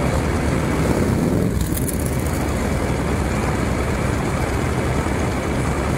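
Motorcycle engines running steadily at a crawl, a continuous low engine note from the bikes in slow traffic.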